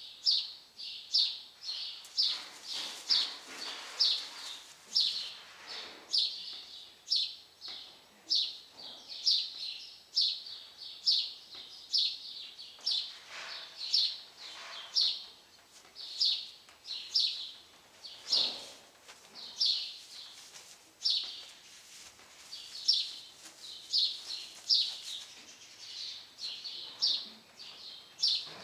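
A small bird chirping over and over, short high chirps at about two a second, keeping up a steady rhythm.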